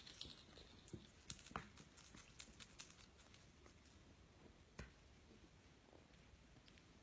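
Near silence with faint, scattered wet clicks of a tabby cat licking and grooming a kitten's fur, most of them in the first three seconds and one sharper tick near the five-second mark.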